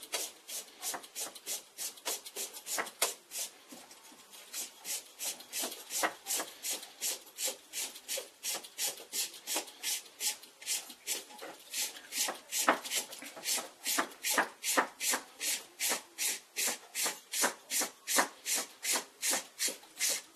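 Rhythmic hand-worked rasping strokes, evenly paced at about two and a half a second, with a short lull about four seconds in.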